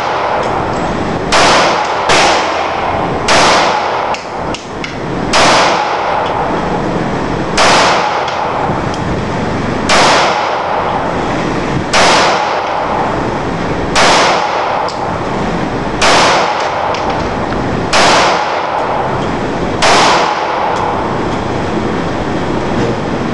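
FN Five-seveN pistol in 5.7×28mm fired eleven times at an even pace, about one shot every two seconds. Each shot is a sharp crack with a short ringing tail, heard over a steady background hiss.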